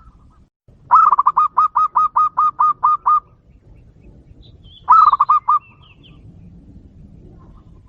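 Zebra dove (perkutut) cooing: a fast run of about eleven short staccato notes, then a shorter run of about five notes a couple of seconds later. Faint high chirps come between the two runs.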